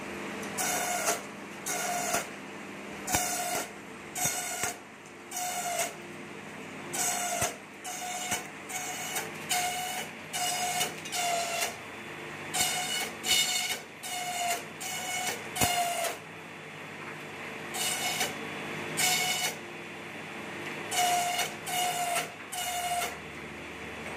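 Electric bamboo slicer for satay skewers running with a steady motor hum, giving a short, loud, high-pitched rasp about every second as pieces of bamboo are fed through the blades.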